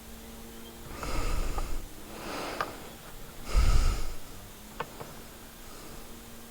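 A person breathing out hard three times close to the microphone, with a few light clicks of handling and a faint steady hum underneath.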